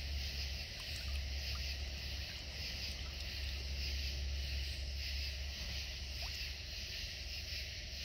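Steady high-pitched chorus of night insects, faintly pulsing, over a low steady rumble.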